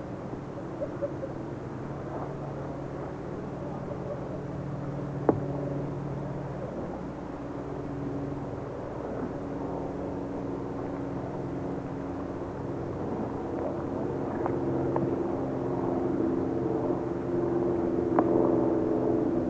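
A steady low mechanical drone of several held tones, which shift in pitch about halfway through and grow louder toward the end. A few sharp clicks stand out, one about five seconds in and another near the end.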